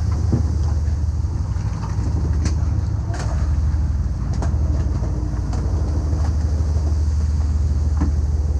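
Fishing boat's engine running steadily with a deep hum, with a few faint clicks and knocks over it.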